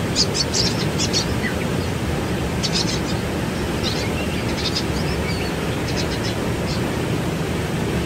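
Waterfall's steady rushing water, deep and even. Over it, small birds give short high chirps in scattered little clusters.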